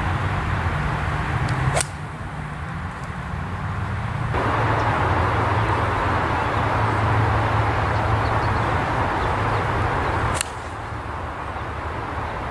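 Two sharp clicks of an iron striking a golf ball, one about two seconds in and one near the end, over steady outdoor background noise and a low hum.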